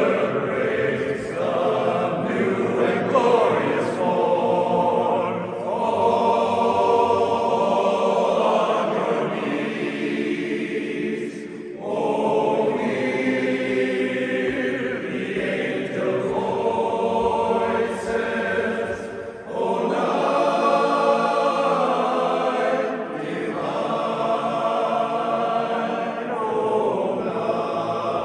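Barbershop chorus singing a cappella, holding sustained close-harmony chords in phrases with brief breaths between them.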